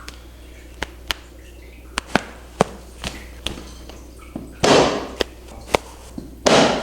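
A series of sharp single pops and clicks, scattered irregularly, typical of joints cracking under chiropractic manipulation. Two louder short rushes of noise come about four and a half seconds in and near the end.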